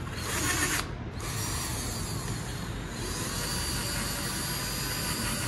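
Cordless drill spinning a foam polishing pad against a car's bonnet, buffing compound into the paint: a steady motor whine with the pad rubbing on the paint. A brief louder rush comes in the first second.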